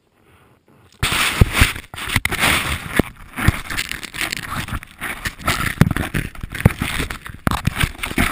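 Snow crunching, scraping and rushing against a helmet-mounted action camera, with many sharp knocks, starting suddenly about a second in.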